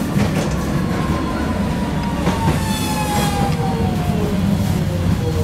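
Hiroshima tram running, heard from the driver's cab: a steady low rumble with wheel clicks over the rails and a whine that falls slowly in pitch.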